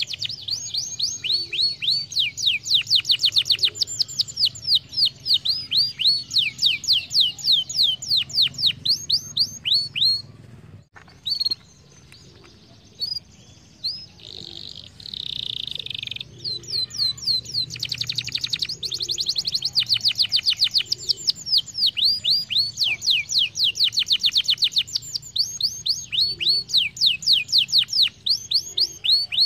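Domestic canary singing: long trills of rapid, repeated high notes that each sweep downward. The song breaks off for a few seconds about halfway through, then resumes.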